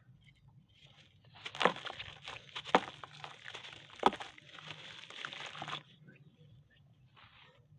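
Dried red dirt crumbled by hand into a basin of water: a gritty crackling of bits breaking off and falling into the water for about four seconds, with three louder sharp hits, stopping about six seconds in.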